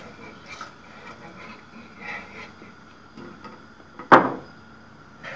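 Wire whisk stirring a milk-and-cocoa mixture in a metal cooking pot, with soft scraping against the pot. About four seconds in there is a single loud knock with a short ring.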